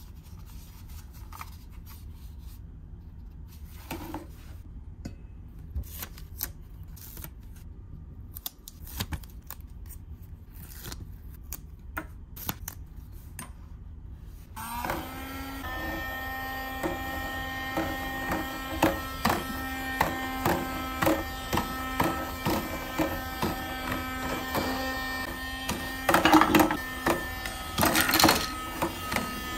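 Light clicks of small plastic toy pieces being handled and set down. About halfway in, a battery-powered Minion air hockey puck switches on and runs with a steady motor whine and rattling clicks. Near the end there are two loud plastic knocks as hand mallets hit the puck.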